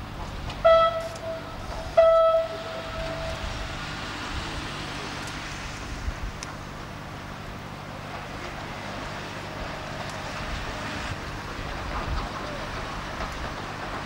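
Horn of a DE II diesel multiple unit sounding twice, a short blast and then a longer one about a second later, on one steady pitch. After it comes the train's steady running noise as it approaches.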